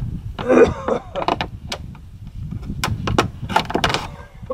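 Thin plastic water bottle crackling and clicking as a knife tip is pressed and twisted into its wall to punch a hole. A low rumble of wind on the microphone runs underneath.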